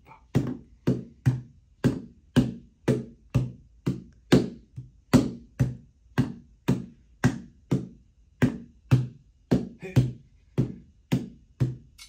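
A fast, slightly uneven series of thuds, about three a second, with a couple of brief gaps: hands striking the targets of a reaction-speed test in quick succession.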